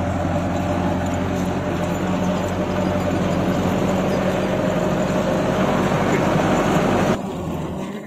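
Tractor's diesel engine running steadily at a constant pitch, working a seed drill. About seven seconds in the sound drops sharply and the deep engine note falls away.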